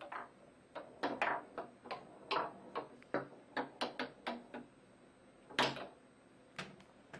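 Foosball play: the ball knocked by the plastic players and bouncing off the table, a quick irregular string of sharp knocks and clicks, the loudest a little past halfway.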